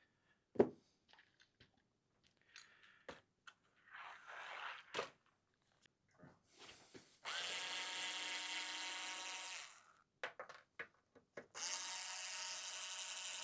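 Small electric screwdriver running twice, for two to three seconds each time, backing out screws, between clicks and knocks of screws and parts being handled, with a sharp knock about half a second in.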